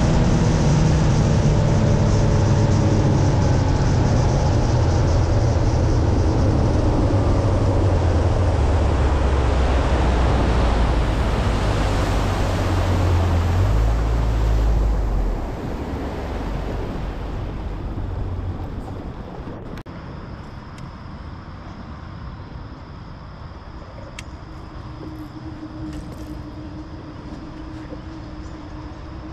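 Boat's outboard motor running under way with a steady drone, then throttling down about halfway through and dropping away. A quieter steady hum is left, with a faint even tone toward the end.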